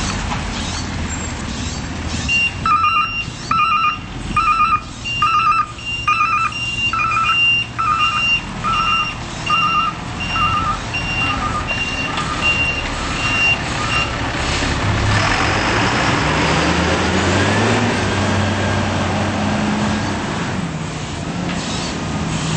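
Crane Carrier low-entry garbage truck running with its backup alarm beeping at an even pace, about one and a half beeps a second, for roughly ten seconds. After the beeping stops there is a hiss, and the engine revs up, holds higher, then drops back near the end.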